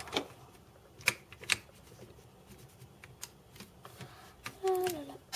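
Plastic Lego pieces clicking and knocking as they are handled and set down on a tabletop: a few scattered sharp clicks with quiet between them.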